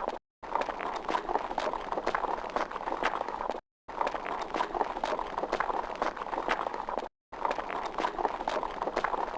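A horse galloping: quick hoofbeats in a steady rhythm, broken three times by a brief drop to silence, about every three and a half seconds.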